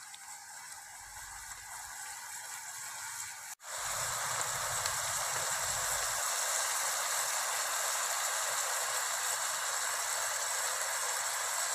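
Goose meat and greens sizzling in a pot over a wood fire, a steady hiss; it breaks off for an instant about three and a half seconds in and comes back louder.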